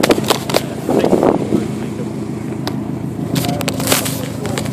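A car engine idling steadily, with scattered sharp clicks and ticks, several of them in a cluster past the three-second mark.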